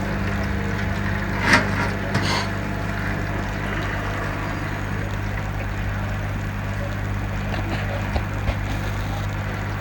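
Front-loading washing machine running with a steady low hum, with two short knocks in the first few seconds.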